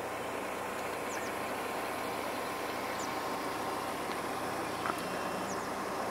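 Steady vehicle noise, an even hum and hiss that does not change, with a few faint short high chirps from birds scattered through it.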